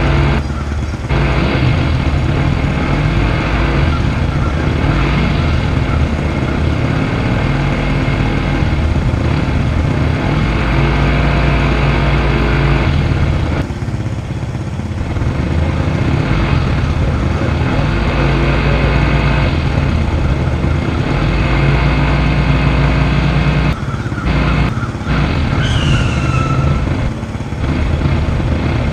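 A vehicle's engine running steadily and loudly, briefly dropping away a few times.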